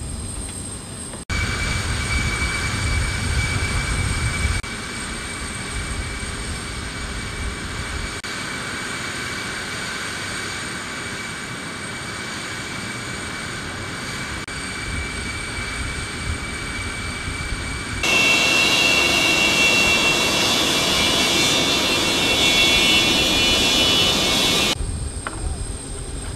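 Steady turbine whine of a jet aircraft running on the ground, with several high fixed tones over a rushing noise. The sound shifts at edits and becomes louder and brighter for several seconds about two-thirds of the way through.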